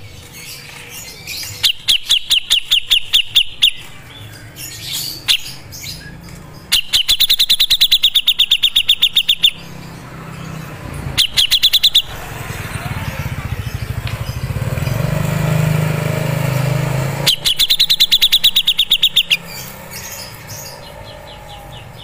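Cucak jenggot (grey-cheeked bulbul) singing in loud bursts of rapid repeated high notes, four bursts of one to three seconds each with pauses between. A steady rushing noise swells in the long gap in the middle.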